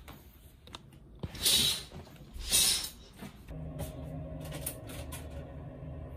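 Two short rustling swishes of bedding as someone gets up, then a steady low hum with a few light clicks.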